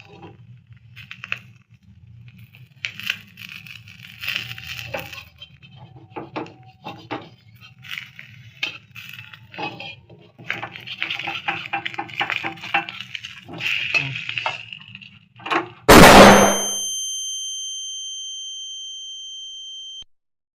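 Eating sounds: cutlery clinking on a plate and chewing, with small clicks and crackles over a low steady hum. About sixteen seconds in, a loud metallic ding rings out with high tones, fades for about four seconds, then cuts off abruptly.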